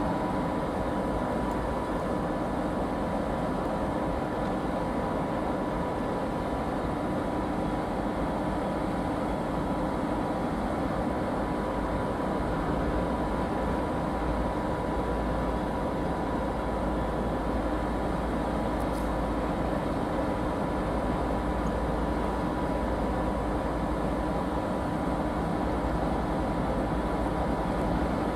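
TEP70BS passenger diesel locomotive's V16 diesel engine running steadily as the locomotive slowly pulls away with a train, with a low rumble and a steady high whine over it.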